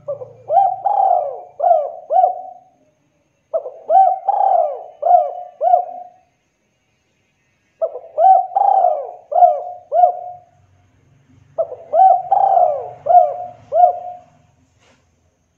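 Spotted dove cooing: four phrases of about five rising-and-falling coos each, one phrase every four seconds or so, with short pauses between.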